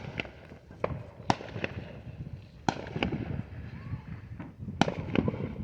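Fireworks going off: a string of about ten sharp bangs and pops at irregular intervals, over a steady rumble of further bursts.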